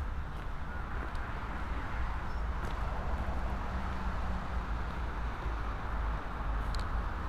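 Steady outdoor city ambience: a low rumble and hiss of road traffic, with a few faint clicks.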